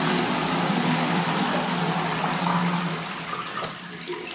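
Concealed Jaquar flush valve, fed by a 2-inch pipe straight from the overhead tank, flushing a toilet: a steady rush of water swirling through the bowl that dies down near the end.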